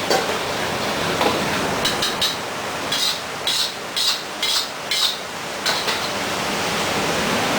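Kitchen utensil sounds: a run of short, light clinks or taps, roughly two a second, over a steady hiss.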